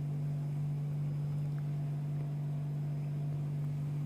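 A steady, even low hum with nothing else over it.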